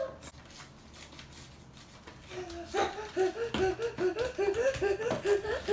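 A young child's voice chanting a rhythmic, wordless sing-song, short syllables at about three a second, starting about two seconds in. Before it, soft scraping and tapping of a spoon stirring flour in a plastic tub.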